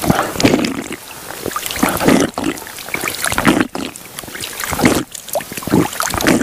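A hand scooping water at the edge of a pond, splashing and letting it trickle back, in several separate bouts.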